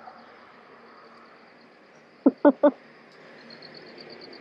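Three quick, loud, short voiced sounds close to the microphone about halfway through, each a fraction of a second long, from a person's voice. Faint steady insect chirring underneath.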